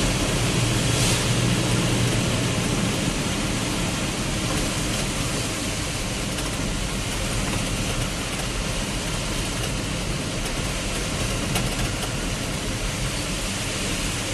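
A vehicle on the move in heavy rain: steady rushing rain and road noise with a low engine hum that fades after about two seconds.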